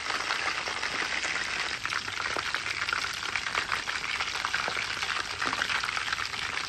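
Chicken wings deep-frying in oil at about 350 degrees: a steady, dense crackling sizzle of bubbling oil.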